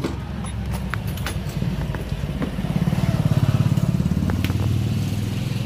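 Small motor scooter engine idling with a quick steady pulse, getting a little louder about halfway through, with a few light clicks from handling the scooter.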